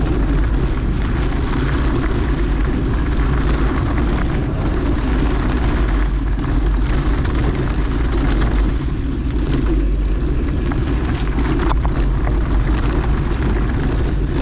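Steady, heavy wind rumble on the microphone from riding a mountain bike at speed, with a few faint clicks near the end.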